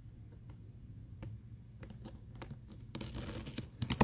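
Hands working at the packing around a shipped art page, freeing it from its packaging: scattered light clicks and scratches, a short rustling scrape about three seconds in, and a sharper click at the very end.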